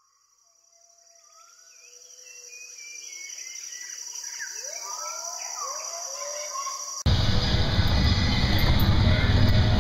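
Birdsong, many short sliding chirps over a steady high insect drone, fading in. About seven seconds in it cuts abruptly to the much louder engine and road noise of riding inside a vehicle.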